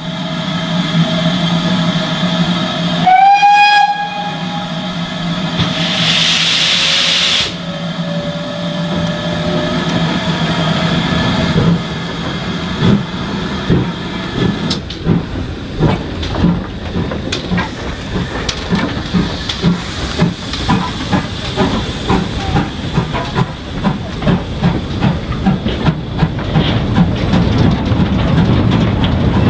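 A Great Western steam locomotive gives a short, loud whistle about three seconds in, rising in pitch as it opens, then a burst of steam hisses for about a second and a half. The goods train then moves off, its wagon wheels clattering over the rail joints in a repeating rhythm.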